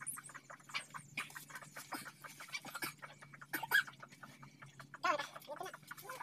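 Chickens clucking, with small birds chirping: many short, irregular calls, a louder cluster about five seconds in, over a faint steady low hum.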